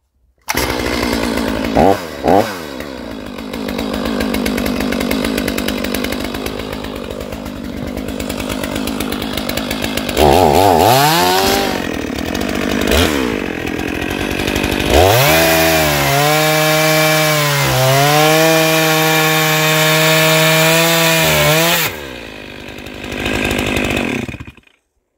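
Stihl 500i fuel-injected two-stroke chainsaw running and bucking a log. It is blipped twice about two seconds in and revved hard about ten seconds in, then held at full throttle in the cut for about seven seconds, its pitch sagging briefly twice as the chain bites, before it drops back and cuts off near the end.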